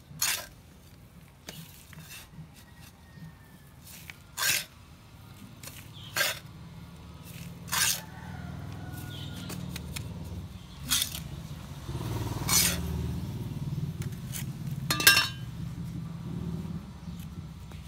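Small plastic scoop clacking against a plastic bucket as potting mix is scooped and dropped in around a papaya stem: sharp knocks every couple of seconds, about seven in all, with soil scraping between them. A low rumble builds in the background from about halfway through.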